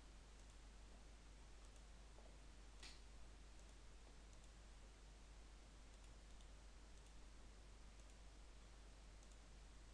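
Near silence: faint microphone hiss and low hum, with a few soft computer mouse clicks, the clearest about three seconds in.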